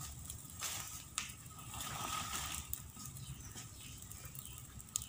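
Open fire of dry palm fronds and leaves burning, crackling with a few sharp pops and a brief swell of hissing about two seconds in.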